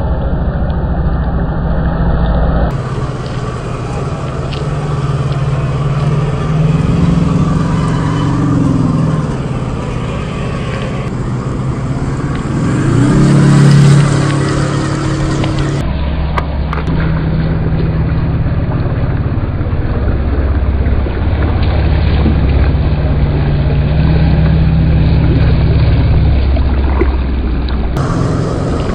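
1/10-scale RC crawler (Axial SCX10 II chassis with a brushed 540 27-turn motor) driving off-road: motor and gear drive whining while the tyres churn and splash through mud and water. The sound swells to its loudest about halfway through.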